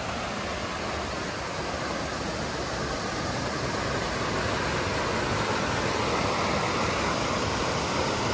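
Creek water rushing over a small stepped waterfall and spilling into a pool, a steady rush of falling water from a heavy spring flow. It grows louder about halfway through.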